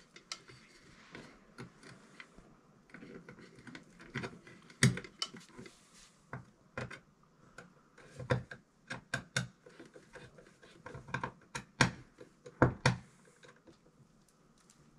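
Hands working wires and a ground connector inside an electrical connection box: irregular small clicks, taps and light scraping, with a few sharper knocks about five seconds in and again around twelve seconds in.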